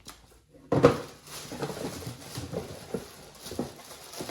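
A sharp knock about a second in, then irregular rustling and light clattering as the new plastic turn-signal housings and their packaging are handled.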